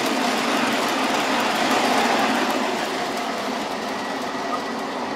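MTH model subway train running along the layout track: a steady rolling rumble of motors and wheels on the rails, swelling about two seconds in and easing off as it passes.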